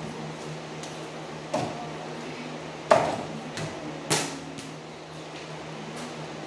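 A basketball being shot at a small wall-mounted hoop, knocking against the hoop and bouncing on the floor. There are a few sharp knocks, the loudest about three seconds in, followed by smaller bounces. A steady low hum runs underneath.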